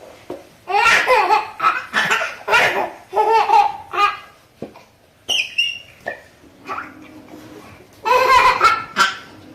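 Loud laughter in repeated bursts, one peal after another, pausing briefly and then breaking out again near the end.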